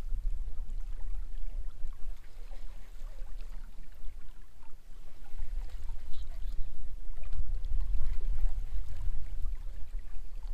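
Wind buffeting the microphone in an uneven low rumble, with river water trickling and lapping along the boat's hull.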